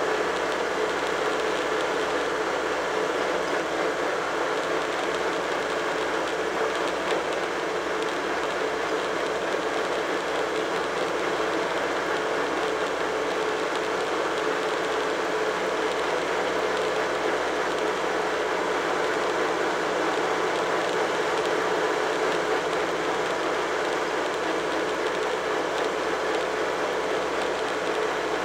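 Tractor engine running steadily at road speed, heard from on board the tractor, mixed with a constant rattling road and wind noise.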